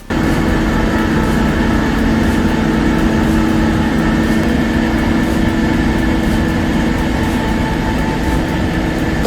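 A heavy machine's engine running steadily and loudly under a constant drone, starting and stopping abruptly.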